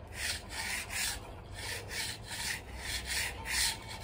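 3/8-inch copper refrigerant tubing being drawn back and forth through a handheld tube straightener, a rasping rub with each stroke, about three a second, as the coiled copper is straightened for the line set.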